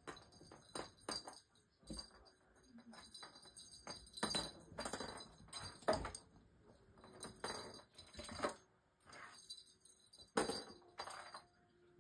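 A small bell jingling in quick, irregular bursts as a cat plays, mixed with taps and scuffles of paws and toys on a vinyl-tiled floor.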